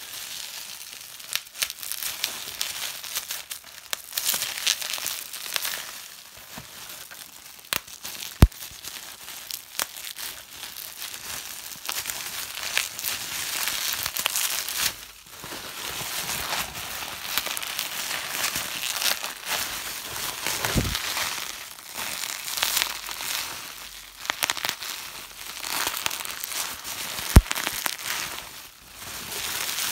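Plastic bubble wrap being crumpled and rustled by hand, a crinkling that comes and goes in waves, with two sharp pops along the way.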